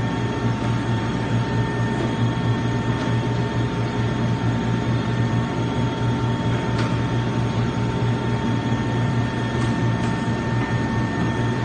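Alimat 160 industrial meat grinder running: a steady electric-motor and drive hum with a constant whine over it.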